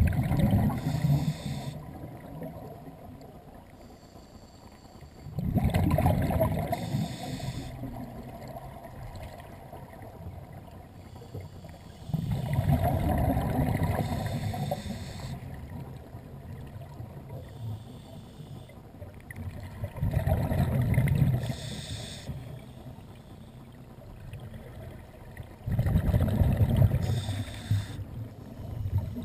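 Scuba diver breathing through a regulator underwater: five bursts of exhaled bubbles, each about two to three seconds long and roughly six seconds apart, with quieter stretches between breaths.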